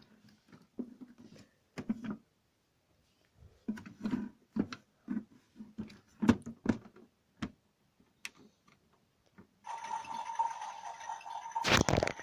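Toy washing machine: a string of separate clicks and knocks, then about ten seconds in its small motor starts running with a steady whine that grows louder near the end.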